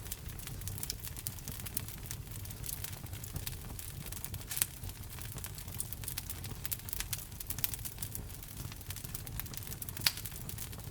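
Wood fire in a fireplace, burning logs crackling and popping in quick irregular snaps over a low steady rumble. Two pops stand out louder, about halfway through and near the end.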